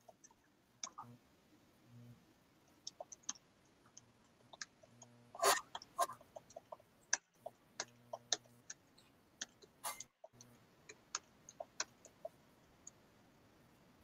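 Faint, irregular clicks and ticks over quiet room noise, the loudest about five and a half seconds in.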